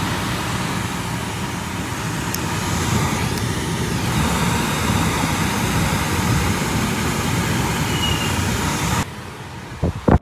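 HVAC air handler's blower fan running with a steady rush of air and a low rumble. It cuts off abruptly near the end and is followed by two brief knocks.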